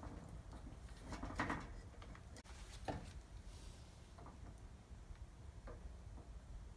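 A few faint, scattered clicks and light knocks over a low background rumble.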